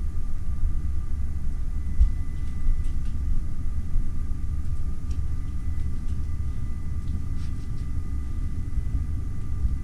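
Steady low rumble of a ship's cabin, with a thin steady whine over it: the background noise of the ship's machinery and ventilation.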